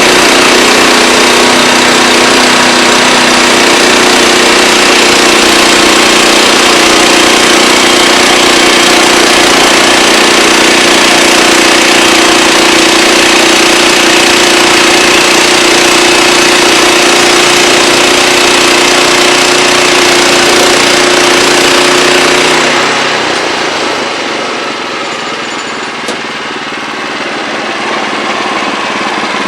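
Wood-Mizer LX25 band sawmill running loud and steady, its blade cutting through a log, with an even engine hum under a wide hiss. Near the end the sound drops to a quieter, thinner level as the cut ends or the engine throttles back.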